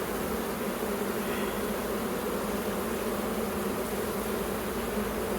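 Honeybees buzzing in large numbers around an opened hive during a frame inspection: a steady, even hum with a low pitch and a second pitch about an octave above it.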